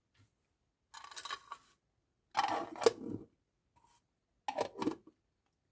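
Handling noises: three short bursts of rustling and clicking, the middle one the loudest.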